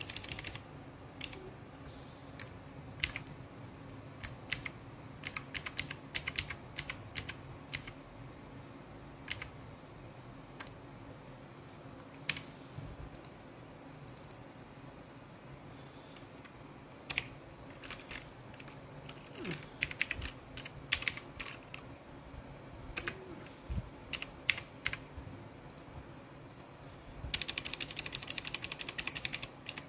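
Keys typed on a laptop keyboard: scattered keystrokes and short bursts, then a quick run of many key presses near the end.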